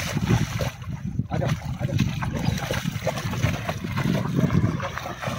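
A Rottweiler splashing and wading through shallow pond water, with irregular sloshing splashes throughout.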